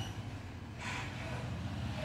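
A steady low rumble, with a short soft hiss just under a second in.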